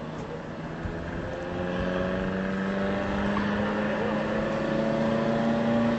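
An engine running, a steady hum that grows louder and rises slightly in pitch from about a second and a half in.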